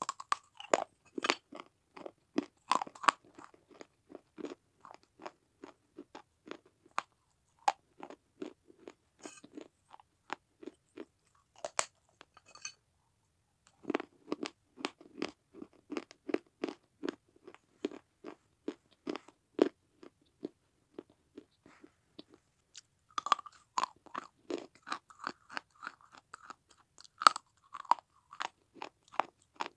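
Crunching and chewing as pieces of a red clay saucer are bitten off and chewed: runs of sharp, rapid crunches with a pause of about a second a little before the middle.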